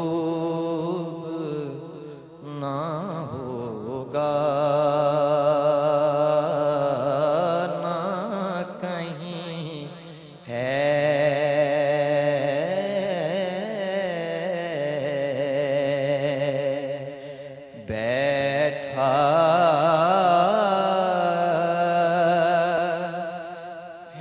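A young man reciting an Urdu naat solo at a microphone: long sung phrases with wavering, ornamented held notes, broken by a few short pauses for breath.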